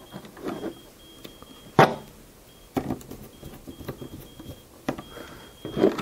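Screwdriver turning a screw on a power supply's metal screw terminal block, with small scrapes and clicks of the tool and the crimped connector, and one sharp click about two seconds in.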